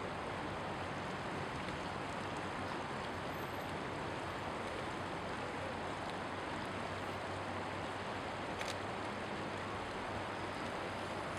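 Steady rushing of river rapids, an even wash of water noise with no music.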